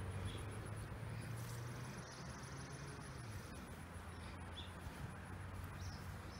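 Quiet outdoor ambience: a low steady hum that eases about three seconds in, with a few short high chirps and a brief high buzz.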